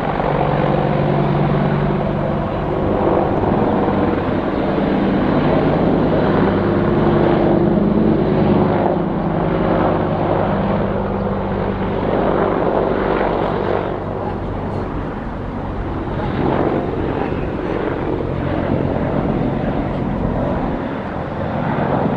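Boeing AH-64E Apache attack helicopters running, their rotors and twin turboshaft engines loud and steady, with a low hum that weakens a little after the midpoint.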